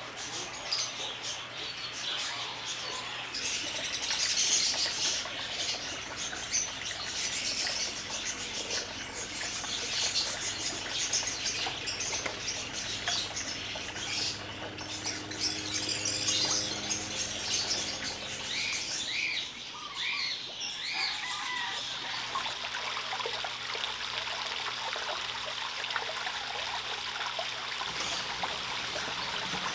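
Water splashing and churning as a pond crowded with fish thrashes at the surface for feed. Birds chirp now and then, with a few clear short chirps about two-thirds of the way through.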